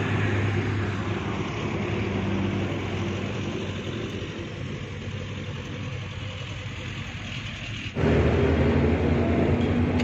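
Engine of a heavy construction vehicle running with a steady low hum that slowly fades; about eight seconds in it cuts abruptly to louder engine noise.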